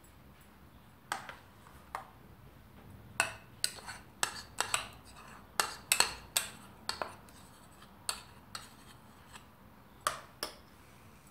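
Metal spoon clinking and tapping against a glass bowl and a cup while stirring and scraping a chocolate-milk mixture. The clinks come in a quick run through the middle, then a few spaced taps near the end.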